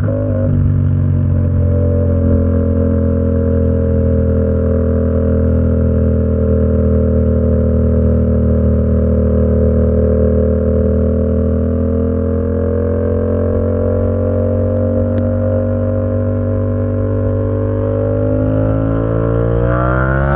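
Yamaha XSR700's 689 cc parallel-twin engine running through an SC Project exhaust under way at a fairly steady pace, its pitch easing slightly and then climbing over the last few seconds as it accelerates.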